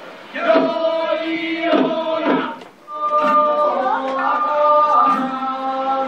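Island festival music: a group of men chanting in unison in short phrases, then from about three seconds in a melody of long held notes.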